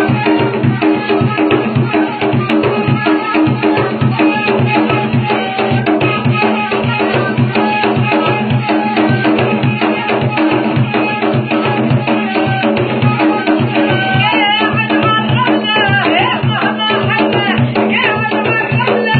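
Folk music: a gasba reed flute over a steady hand-drum rhythm.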